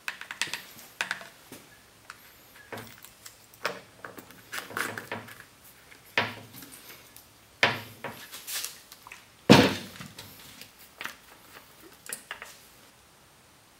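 Clicks, knocks and light clatter of hands handling a Stihl 028 AV chainsaw's plastic housing, fuel funnel and filler caps on a workbench, with the loudest knock about nine and a half seconds in.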